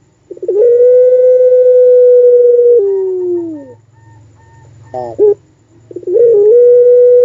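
Puter pelung dove giving its long-drawn, howl-like call: a quick stuttered start, one long held note of about two and a half seconds, then a drop to a lower falling tail. A short run of rising notes about five seconds in opens a second long call that is still held at the end.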